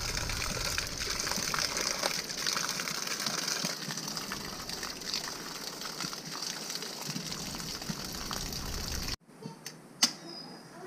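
Water pouring steadily from a spout and splashing, with hands sloshing and rubbing in a pot of water; it cuts off suddenly about nine seconds in. Near the end comes a single sharp strike, a match being struck.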